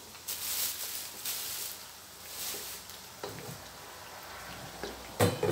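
Hot oil sizzling in a wok around sweetened dried fish as it fries, a high hiss that comes and goes in waves, with one sharp knock near the end.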